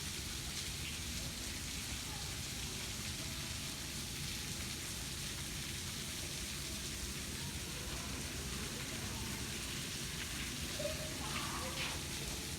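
A waterfall pouring down, making a steady, even rush of falling water.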